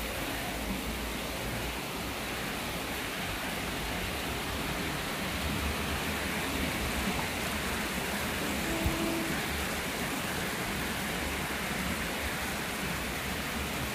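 Typhoon rain falling steadily, an even hiss with no let-up. A short faint tone sounds briefly about nine seconds in.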